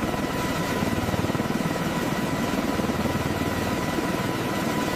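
CH-53K King Stallion heavy-lift helicopter on a ground run at full rotor speed, its T408 turboshaft engines turning the seven-blade rotor: a steady, rapid beat of the rotor blades under a thin, steady high whine.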